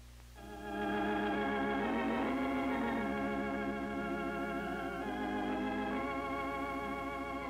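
Organ playing slow, sustained chords, coming in about half a second in, over a steady low hum.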